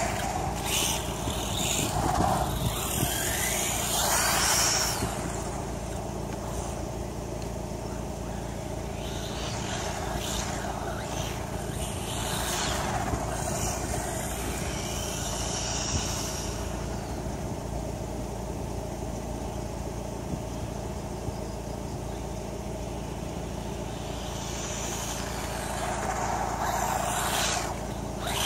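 WLtoys A959 RC buggy with a 2838 brushless motor on a 2S LiPo running at speed, its high motor whine rising and falling as it comes close and goes away several times.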